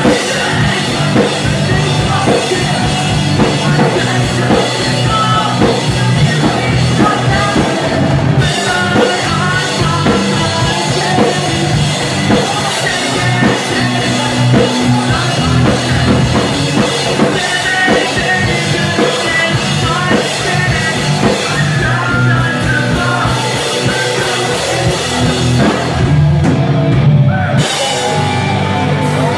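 A live rock band playing loud: electric guitars and a drum kit with sung vocals over the top.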